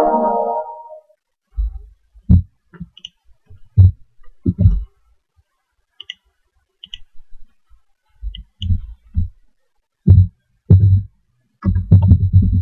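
The tail of the Windows XP log-off chime fades out in the first second. Then come scattered muffled knocks and clicks from keyboard keys and a mouse as a user name is typed, in quick runs near the end.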